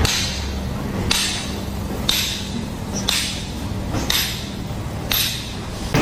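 Six evenly spaced sharp metallic strikes, about one a second, each with a short ringing tail, over a steady low hum.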